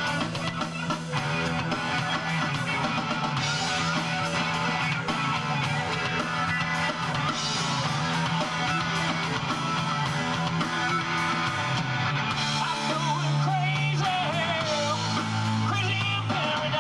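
A rock band playing live: electric guitars over bass and a drum kit, with a steady beat throughout. A lead line with wavering, bending pitch comes in over the top in the last few seconds.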